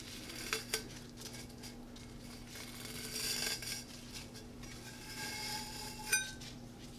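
Fishnet stocking being pulled off a spray-painted metal tumbler: soft rustling and scraping of the mesh sliding over the cup, with a couple of light clicks early and a short metallic ring about six seconds in.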